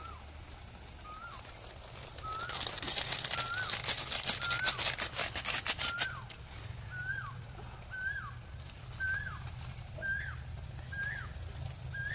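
A bird repeating a short call, one note that rises then drops, about every three-quarters of a second. From about two seconds in to about six seconds in, a dense crackling and rustling is louder than the call.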